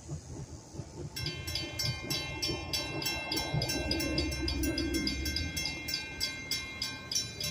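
Intro music with a steady beat of bright chiming, bell-like notes starts about a second in, over the low rumble of a train ride.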